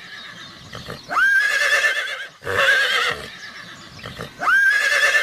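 Horse whinnying, about three neighs in a row, each rising sharply in pitch and then held with a quaver.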